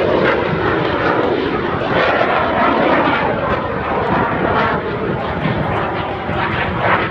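Fixed-wing airplane engine noise, loud and steady, its pitch falling over the first second or two as the aircraft passes.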